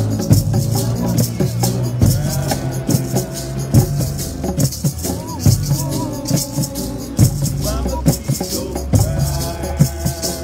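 Binghistra music played live: hand drums beat a heavy rhythm under an acoustic guitar melody, with a man singing over them and a steady high rattle keeping time.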